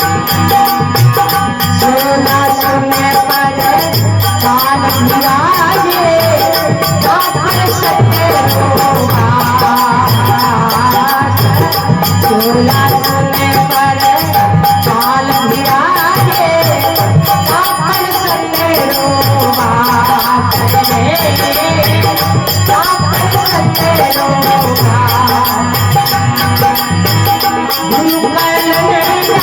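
Rajasthani folk devotional bhajan music: a sliding, ornamented melody over a steady, fast rattling percussion beat.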